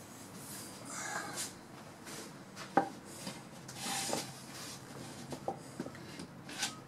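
Small bar clamp being taken from a rack and clamped onto a tall plywood board: rustling handling noise, a sharp knock about three seconds in, and a few light clicks near the end as the clamp is tightened.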